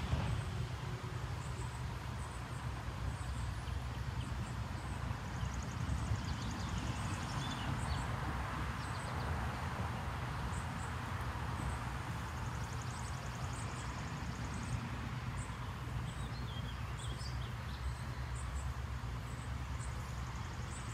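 Outdoor ambience with a steady low rumble and birds chirping now and then, over the soft rubbing of a cloth dampened with denatured alcohol wiping down a plastic kayak hull.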